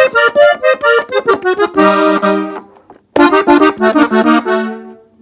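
Gabbanelli button accordion in F, played on the treble buttons: a quick run of notes ending on a held chord, a short break about three seconds in, then a second run ending on held notes. It is a norteño-style fill (adorno) in E-flat.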